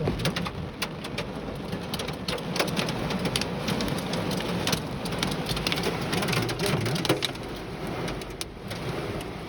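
Hail and heavy rain hitting a car, heard from inside: a dense run of sharp ice strikes over the steady hiss of rain.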